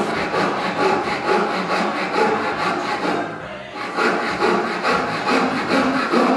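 Small hand saw cutting through the end of a cherry corner trim strip in quick back-and-forth strokes, with a brief pause about three seconds in.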